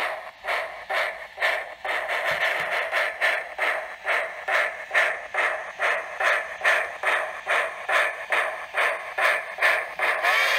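Sound-equipped Sn3 model of a 2-8-0 steam locomotive playing steady exhaust chuffs through its speaker, about two a second, as it pulls its train.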